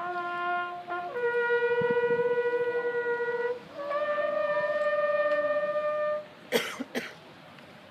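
Closing notes of a military bugle call, played as long held notes: one drops to a lower note, then climbs to a higher one that stops about six seconds in. Two or three sharp knocks follow just after.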